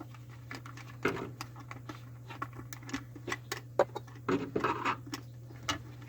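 Irregular small clicks, taps and rustles of hands working the wires and metal cable clamp at a garbage disposal's electrical connection, over a steady low hum.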